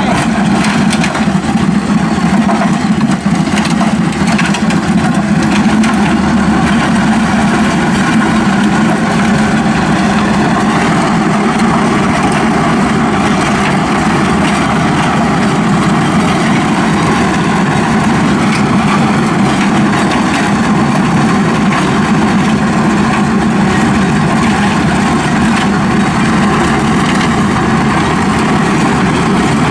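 Wheeled excavator's diesel engine running steadily under load while its hydraulic trench cutter grinds a narrow trench through gravel and soil: one loud, even, continuous din.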